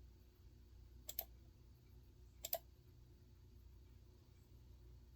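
Near silence over a low steady hum, broken by two short double clicks about a second and a half apart, the first about a second in.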